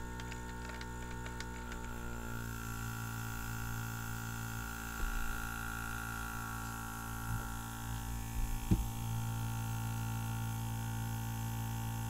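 Small airbrush air compressor running with a steady hum, with a few soft knocks as the compressor box is picked up and turned over by hand.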